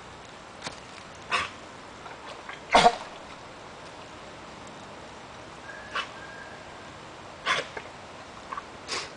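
German Shepherd dog wading in a shallow creek, making about six short, sharp bursts of sound, the loudest about three seconds in.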